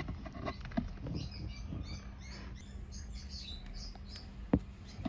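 Hands working a paddle shifter's cord and plastic connector through a hole behind a car steering wheel: small handling clicks and rustles with brief high squeaks, and one sharp click near the end. A low steady hum runs underneath.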